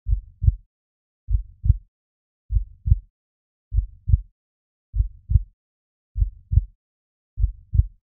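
A slow heartbeat: a deep double thump, lub-dub, repeating about every 1.2 seconds, seven beats in all.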